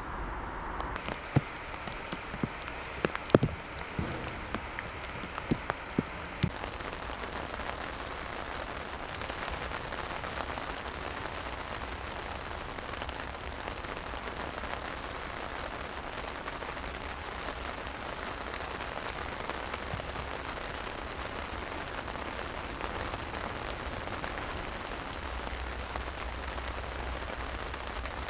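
Steady heavy rain falling on an open grass training pitch. A handful of sharp knocks stand out in the first several seconds.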